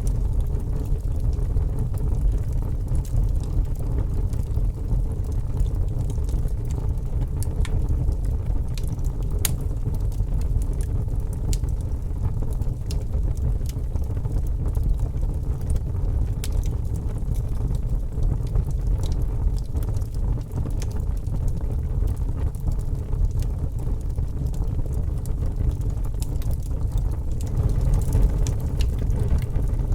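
Wood fire burning with a steady low rumble and scattered sharp crackles and pops.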